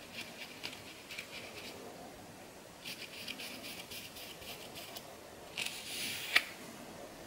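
Fine-toothed steel comb scraping over a flaky scalp in short repeated strokes, in several separate bursts. Near the end a louder stretch of scraping ends in a sharp click.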